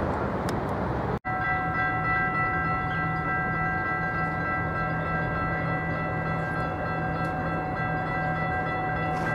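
A railroad grade-crossing warning bell ringing steadily, with its gates down for an approaching train. Before it, a steady noise cuts off abruptly about a second in.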